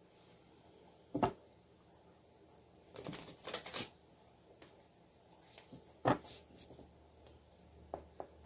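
A deck of oracle cards being handled on a table: a knock about a second in, a short rustle of cards around three seconds in, another knock about six seconds in, and a couple of light taps near the end.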